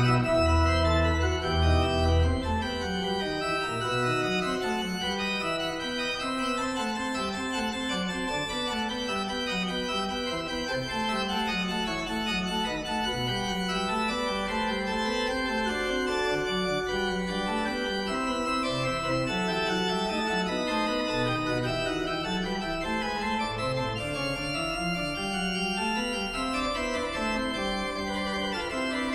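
Organ music playing slow, sustained chords, with deep bass notes in the first couple of seconds.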